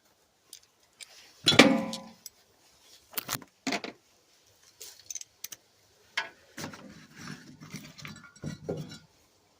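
Metal hand tools, socket wrench extensions and sockets, being handled and knocked together. There is a loud ringing clang about a second and a half in, a couple of sharp clinks, then softer clattering and rummaging near the end.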